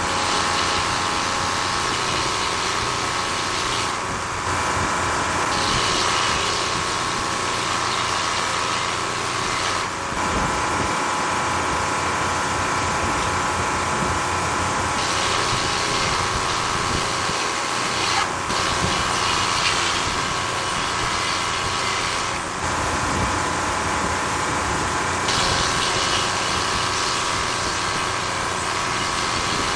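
Sawmill running: its engine going steadily while the blade cuts through a log, the hiss of the cut changing abruptly several times.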